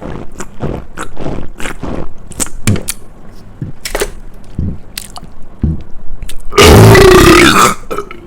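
A man burps loudly once, about six and a half seconds in: a long belch of over a second whose pitch wavers. Before it comes a run of small clicks and scrapes close to the microphone.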